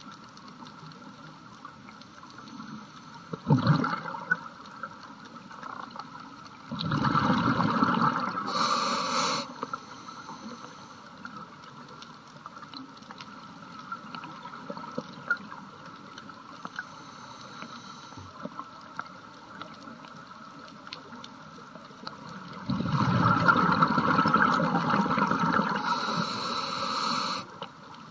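Scuba diver breathing through a regulator: exhaled bubbles gurgle out in three bursts, a short one a few seconds in, a longer one about seven seconds in, and the longest, about five seconds, near the end, over a steady faint underwater hiss.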